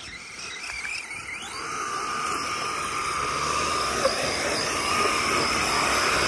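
Electric RC car's motor whining at high speed as it climbs a sand dune with its tyres spinning in the sand. The whine rises in pitch at first, then holds steady and grows louder as the car comes closer, over a hiss of spraying sand.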